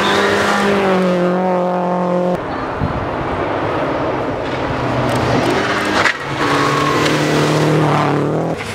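Rally car engines running hard on a gravel stage. The first car passes close, its note dropping slightly, then the sound cuts abruptly twice to other cars' engines, the last holding a steady high-revving note.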